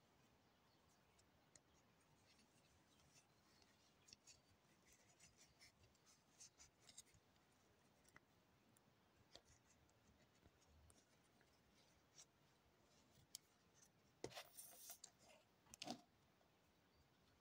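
Faint scratchy rustling of flax plumbing hemp being wound by hand onto the thread of a brass pipe fitting, with two louder rustles near the end.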